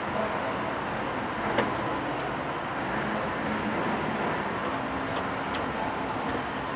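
Kubota D905 diesel engine running steadily, an even mechanical noise with no change in speed.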